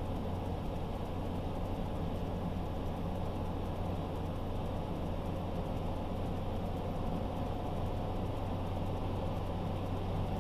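Car driving at a steady pace: a constant low engine hum with road and tyre noise.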